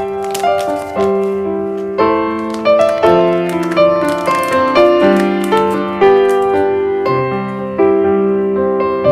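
Background music: a gentle piano tune, notes struck in a steady rhythm with chords underneath.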